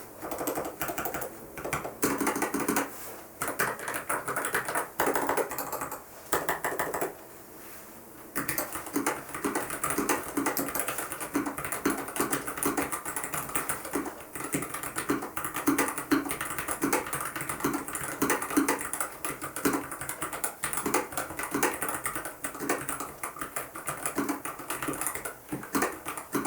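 Typing on a Royal Kludge RK N80 low-profile mechanical keyboard: a rapid, continuous patter of key clicks, with a short pause about seven seconds in.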